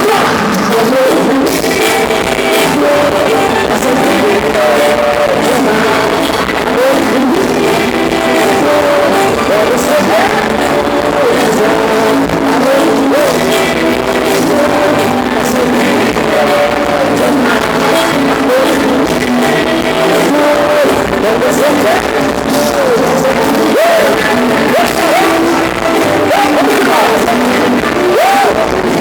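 A forró band playing, with a singing voice and steady percussion.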